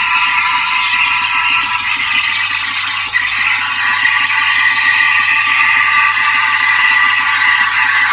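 Steam wand of a Karaca Coffee Art 1101 espresso machine, dipped about 2 cm into a pitcher of milk, heating and frothing it: a loud steady hiss with high whistling tones that shift to one stronger tone about three seconds in.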